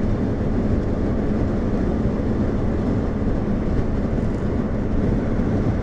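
Steady road and engine noise of a moving car, heard from inside the cabin: an even low rumble.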